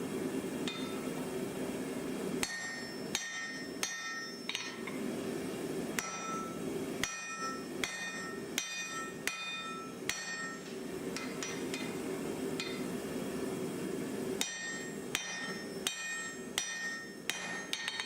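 Forging hammer striking hot iron on an anvil, each blow ringing, in two runs of blows at a steady working pace with a pause between them. A steady hum runs underneath.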